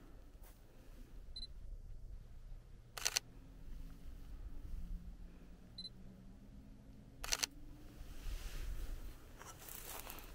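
Sony a7III mirrorless camera's mechanical shutter firing twice, about four seconds apart, each a quick double click. A faint short high beep, the camera's focus-confirmation tone, comes about a second and a half before each shot.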